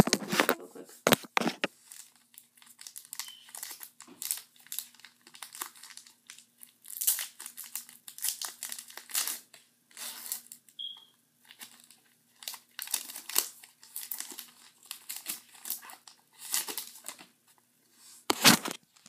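Foil wrapper of a Pokémon card booster pack crinkling and tearing as it is opened by hand: a long run of irregular rustles and rips, with a loud crackle at the very start and another near the end.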